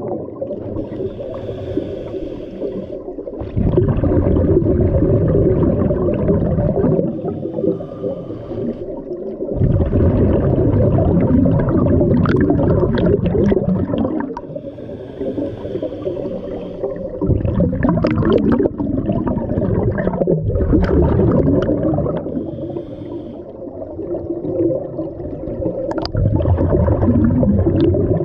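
Scuba diver breathing through a regulator underwater: a short hissing inhalation alternates with a long, loud rumble of exhaled bubbles, in a slow cycle of about five or six breaths.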